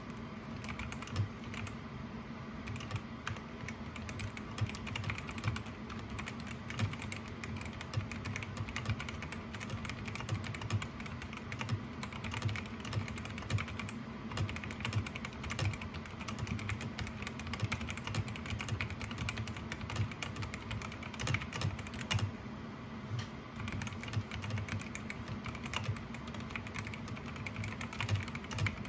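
Typing on a Vortex Series GT-8 mechanical keyboard with Outemu Brown tactile switches: a steady, irregular run of key clicks and keystrokes, briefly letting up about two-thirds of the way through.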